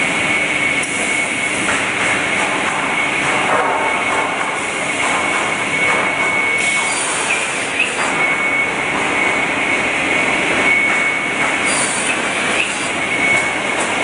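TS550 automated sawing and branding machine running: a continuous loud machine noise with a high steady whine that breaks off for a moment about halfway through and comes back, and a few light knocks as the stock is fed.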